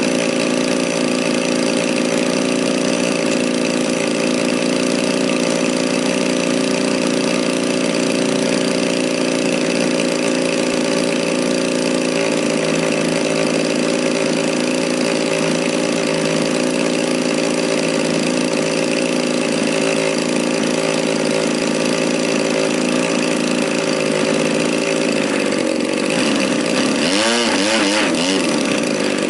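35cc two-stroke gasoline engine of a radio-control Sbach aerobatic plane running steadily, its pitch sweeping up and down a few seconds before the end.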